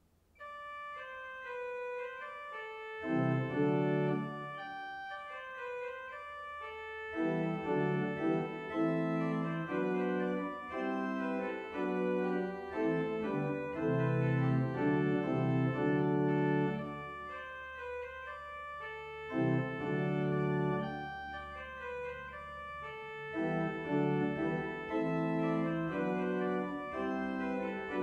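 Church organ playing closing music: sustained chords with a melody on top, starting just after the beginning, and deep bass notes that come in and drop out phrase by phrase.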